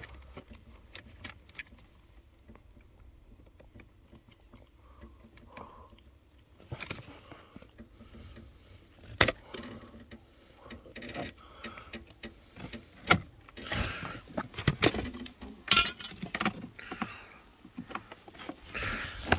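Hands working at a car's fuse box: scattered clicks, taps and rattles, sparse at first and busier from about seven seconds in, with a sharp click about nine seconds in.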